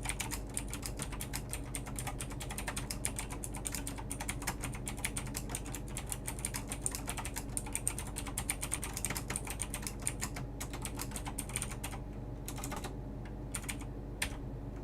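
Typing on a LESHP mechanical keyboard with clicky blue switches (not Cherry): a rapid, continuous clatter of key clicks that thins to a few scattered keystrokes near the end, over a steady low hum.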